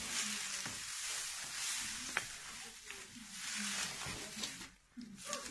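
Dry straw rustling and crackling as a bundle is handled and straightened by hand into a thatching sheaf, with one sharp crackle about two seconds in; the rustling stops near the end.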